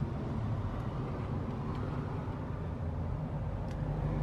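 Steady low outdoor background rumble, with a few faint clicks.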